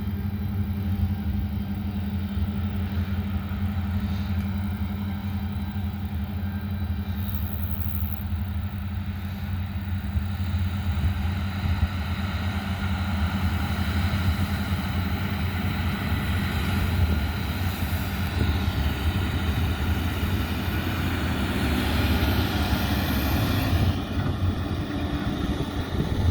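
Engine running with a steady low drone. A second machine's noise builds up from about ten seconds in and drops off sharply near the end.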